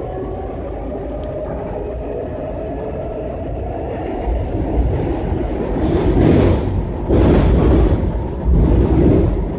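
Washington Metro train running between stations, heard from inside the car: a steady low rumble that grows louder about four seconds in, with rough surges in the second half.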